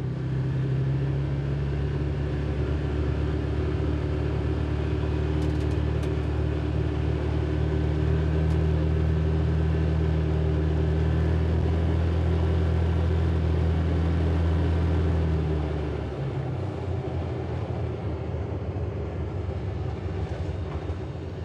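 Can-Am Defender side-by-side engine and drivetrain running with a steady low drone while driving, heard from inside the cab. The drone eases off about sixteen seconds in as the machine slows down. The machine is running on a freshly replaced drive shaft.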